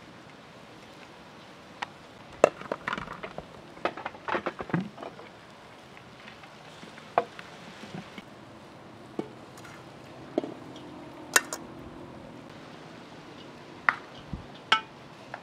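A metal spoon clinking and scraping against a large metal cooking pot while rice and chopped herbs are scooped and layered into it, with irregular sharp clinks and short clusters of knocks and a soft rustle of rice falling into the pot.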